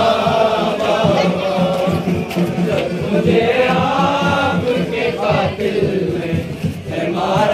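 A crowd of male mourners chanting a Muharram lament (noha) in unison on long, gliding held notes, with a dense beat of low thumps underneath.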